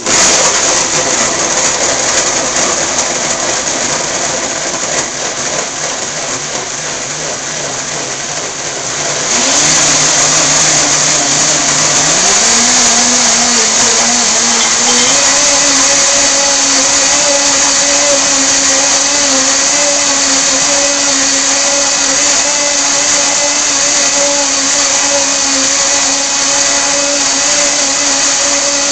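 A 20-amp Blendtec blender running a pre-programmed cycle on a smoothie of whole cucumber, apple, chia seeds and water. It churns at low speed at first, steps up in speed about 9 seconds in and twice more over the next few seconds, then runs steadily at high speed.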